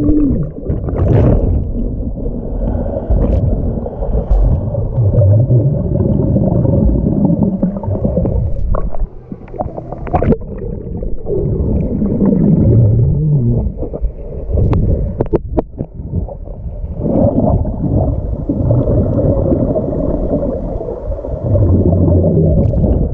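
Underwater pool sound picked up by a submerged GoPro: a loud, muffled, low churning rumble of water stirred by swimmers' strokes and kicks, with gurgling exhaled bubbles and a few sharp clicks.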